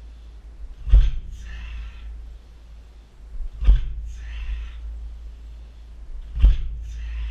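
Three heavy thuds about 2.7 seconds apart as kicks strike a car tyre target weighted with plates on a boxing stand. Each thud is followed by a short breathy hiss.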